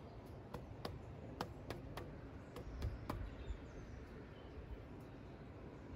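Quiet outdoor background with a scattering of sharp clicks, about eight of them in the first three seconds, and a brief low rumble around three seconds in.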